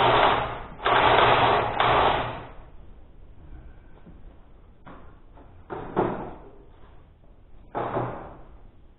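Air impact wrench run in bursts, tightening the bolts that join the engine to the tractor. There are two long runs in the first two and a half seconds, then three short ones about five, six and eight seconds in.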